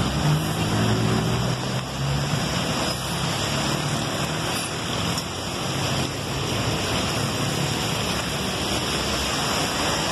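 Traffic on a rain-soaked city street: car and bus engines running under a steady hiss of rain and tyres on wet road. The engine hum is strongest in the first couple of seconds.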